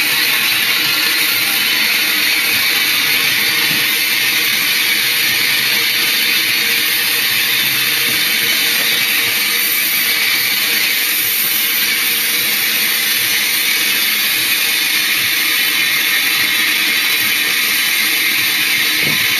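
Steam hissing steadily in the cab of a steam locomotive.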